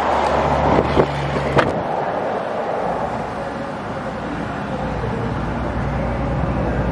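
Wind blowing on the microphone outdoors over a steady low hum, with two short sharp knocks about one and one and a half seconds in.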